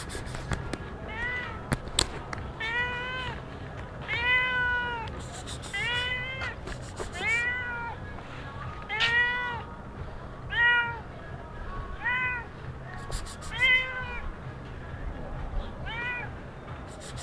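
A stray cat meowing over and over, about ten separate meows roughly every one and a half seconds, each rising and then falling in pitch.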